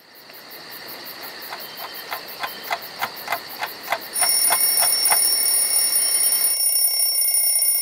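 A clock ticking at about three ticks a second. About four seconds in, an alarm clock starts ringing with a steady high tone.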